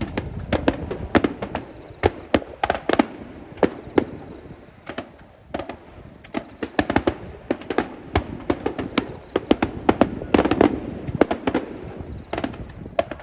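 Aerial fireworks going off in quick, irregular succession: many sharp bangs, at times several a second, over a continuous low rumble.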